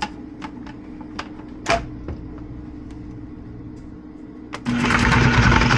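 Kitchen prep with a knife on a cutting board while carrot sticks are cut and set up: scattered sharp clicks and taps. About a second before the end, a sudden loud, dense clattering noise starts and carries on.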